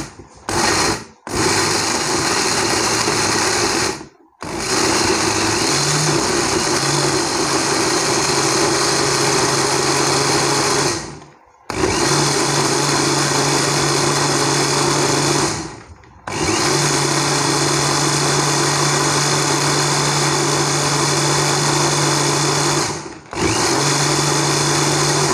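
Electric countertop blender running, chopping bitter melon with sugar and water into juice. The motor is switched on and off in about five runs of a few seconds each, with brief stops between them.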